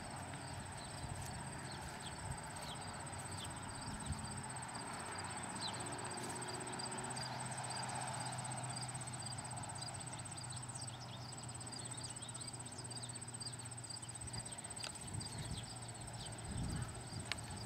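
Insects, likely crickets, chirping in a steady even rhythm over a low steady hum.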